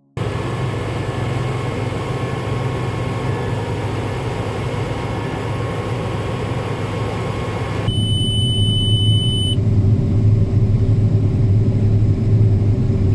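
Case IH combine harvester running steadily in a corn field: a deep engine drone with faint higher whines. About eight seconds in the sound shifts to a louder, deeper drone, with a high steady tone for about a second and a half.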